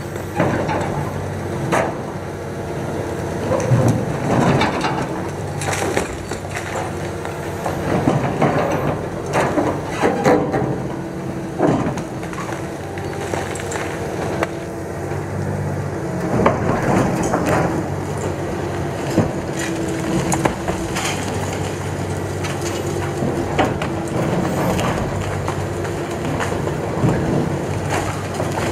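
Liebherr R954C high-reach demolition excavator running steadily while its crusher jaws bite into reinforced concrete, with irregular cracks and crunches of the concrete breaking apart.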